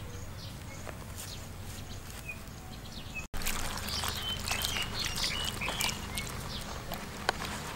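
Leaves crackling as a dead lizard is laid on a large leaf; then, after a brief dropout in the sound, water poured from a clay pot splashes over the lizard and leaf while a hand rubs its skin. Faint bird chirps in the background.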